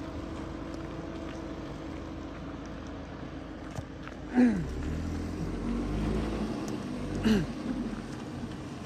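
Audi TT RS's turbocharged five-cylinder engine running at low revs as the car creeps over rough dirt, its note swelling under load about halfway through. Two brief falling-pitch sounds cut in, one around the middle and one near the end.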